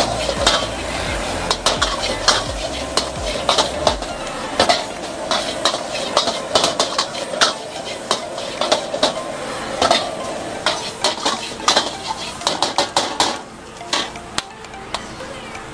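Metal ladle scraping and clanking against a wok in quick, irregular strokes while rice and egg sizzle in the hot oil. The clanking stops about a second and a half before the end, leaving a quieter hiss.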